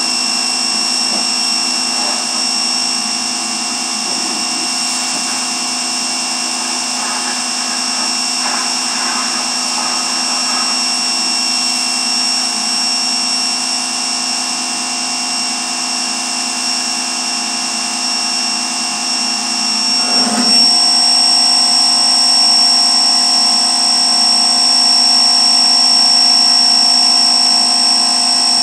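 Power washer running steadily with a constant whine. About twenty seconds in its tone shifts and it gets a little louder.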